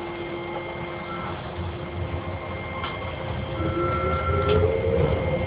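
Docklands Light Railway train running, heard from inside the carriage: a low rumble with a few sharp clicks. About three and a half seconds in, a whine starts to rise in pitch as the rumble grows louder, the sound of the train picking up speed.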